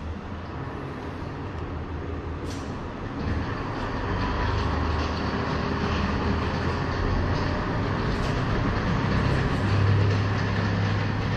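JR Hokkaido KiHa 150 diesel railcar pulling away from the platform and passing close by, its diesel engine and wheels on the rails getting louder as it gathers speed. The engine note steps up to a stronger, slightly higher tone near the end as the rear of the car goes past.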